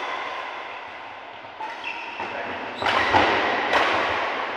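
Badminton rackets striking a shuttlecock in a doubles rally, echoing in a large hall: one sharp hit at the start, then several more from about a second and a half in, growing louder near the end.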